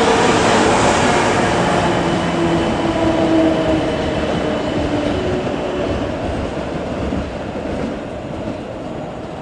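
Electric multiple-unit train running past close by, a steady rumble of wheels on rail with a few held tones over it, fading away over the second half as it moves off.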